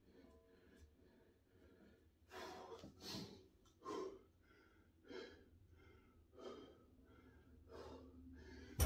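A weightlifter's sharp, heavy breaths, about six in a row roughly a second apart, starting about two seconds in, as he braces over a heavily loaded barbell for bent-over rows.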